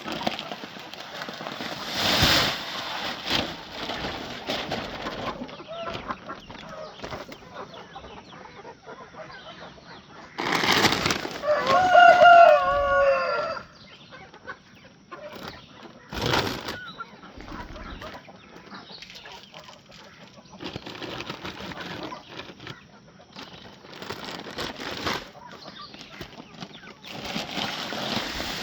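A flock of chickens clucking, with a rooster crowing once about twelve seconds in. A few short noisy bursts stand out near the start, middle and about sixteen seconds in.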